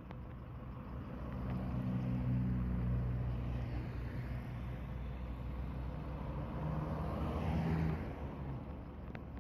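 City bus engine pulling away from the curb and accelerating off, swelling about two seconds in and again near the eight-second mark with a dip between.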